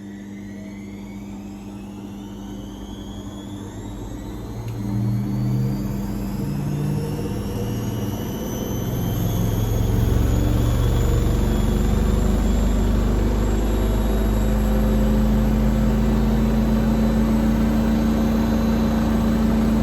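A 1600 rpm washing machine speeding up into its fastest spin: the motor's whine rises steadily in pitch while the drum's rumble grows louder. The loudness levels off about halfway through as the whine keeps climbing slowly.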